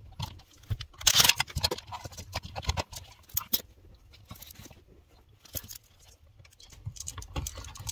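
Irregular clicks, taps and scrapes of gloved hands handling a plastic electrical box and a wall outlet with its wires attached.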